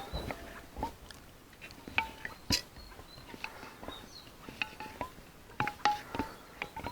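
A glass jar with a metal screw-on lid being handled and opened: scattered clicks and knocks with short ringing clinks of metal and glass, the loudest about two seconds in and again near the end.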